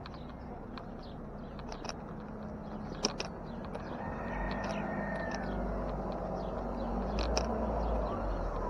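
Street traffic running past, the rumble swelling in the second half as a vehicle comes closer, with scattered short high ticks and one sharp click about three seconds in.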